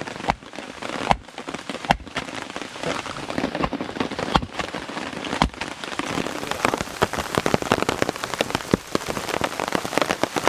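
Rain falling on a tarp shelter: a dense patter of drops that grows heavier about halfway through, with a few sharper clicks in the first half.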